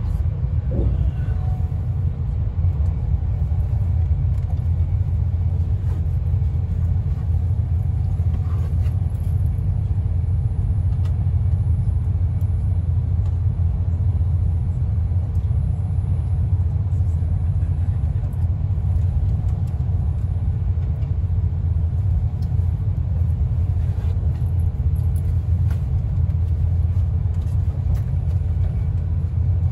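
Steady low rumble of an intercity passenger train running at speed, heard from inside the carriage, with a faint steady hum above it.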